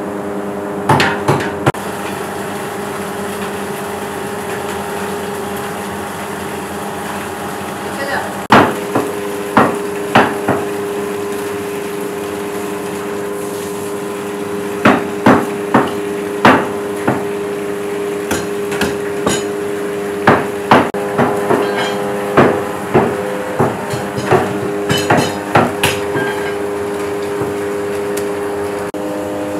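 A metal rice strainer-ladle repeatedly knocking against the rims of large steel cooking pots while parboiled rice is scooped and layered for biryani. The sharp clanks come in irregular clusters, several a second at times, over a steady hum.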